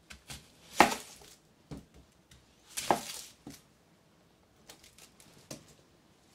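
Kitchen knife cutting an onion on a cutting board: a few sharp knocks of the blade hitting the board, the loudest about a second in, a longer scraping cut around three seconds, and lighter taps after.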